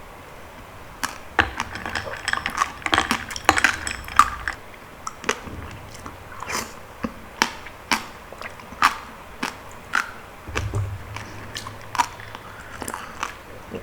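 Close-miked chewing of palm fruit (sea coconut) jelly with passion fruit juice: wet, sticky mouth clicks. A quick flurry of bites comes first, then a steady chew of about one click every half second or so.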